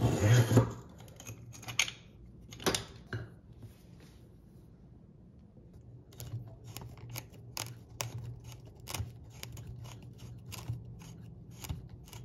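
Hands threading a locking nut and washer onto a faucet's threaded mounting shank: a loud rustle of handling at the start, then small irregular clicks and rubbing of the threads as the nut is spun up hand tight.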